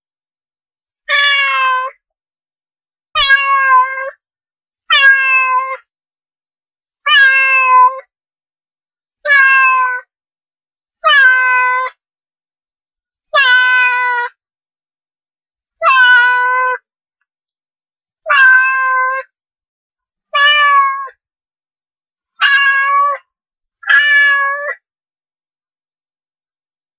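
Domestic cat meowing: twelve short meows of much the same shape, about two seconds apart, with dead silence between them.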